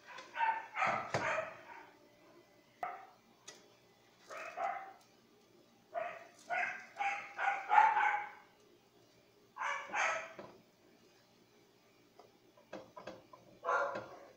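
A dog barking in short runs of a few barks, with pauses of a second or more between the runs.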